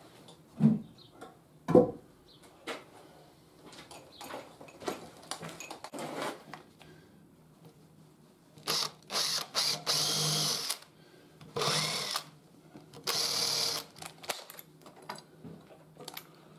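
Makita 18V cordless drill boring into a white timber handrail in several short bursts in the second half, each lasting up to about a second. Before the drilling come a few knocks and clatter of wood being handled.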